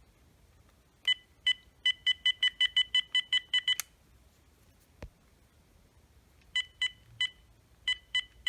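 Cordless phone handset beeping with each key press: a quick run of about a dozen identical short beeps, a click and a soft knock, then a few more beeps near the end.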